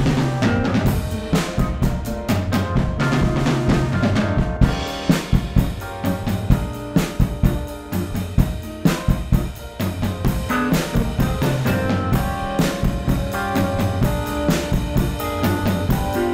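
Drum-kit recording on a mono drum bus, with kick, snare and cymbals, played through an Audio-Scape V-Comp+ vari-mu compressor with its drive circuit engaged for saturation. The compressor is switched out of the circuit about halfway through and back in near the end.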